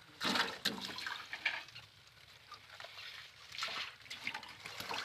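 Water splashing and running, loudest just after the start, with a second, softer splash about three and a half seconds in.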